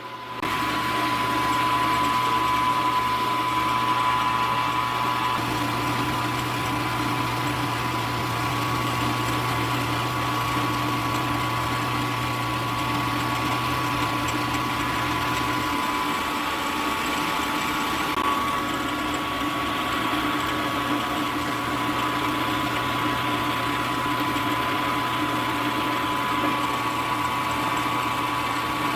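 Milling machine spindle running steadily with a constant whine while an end mill skims across the top of aluminium soft jaws in the vise.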